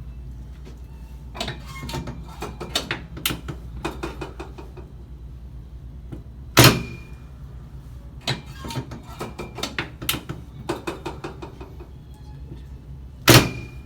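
A run of light clicks and knocks, then two loud sharp clacks about seven seconds apart, each followed by a brief high ring, from a chiropractic treatment table being worked. A low steady hum sits underneath.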